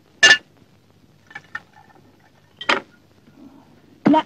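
Glass bottle and drinking glasses clinking and knocking on a table: three sharp clinks, one every second and a half or so, with two faint ticks between.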